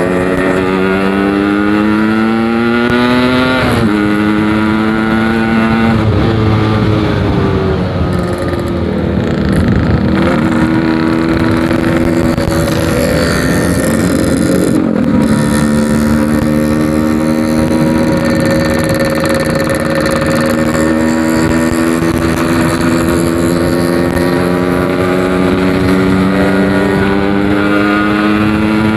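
Yamaha RX-King's 135cc two-stroke single-cylinder engine on the move, heard through a Packing Power aftermarket exhaust. Its pitch climbs as it accelerates, falls back at gear changes about four and fifteen seconds in, then rises slowly and steadily.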